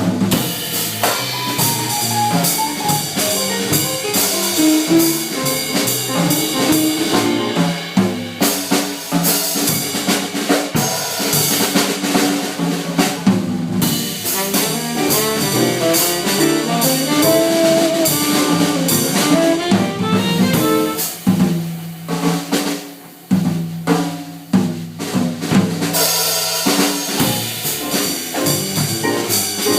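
Small jazz band playing live, with the drum kit to the fore: snare, bass drum and rimshots over moving pitched instrument lines.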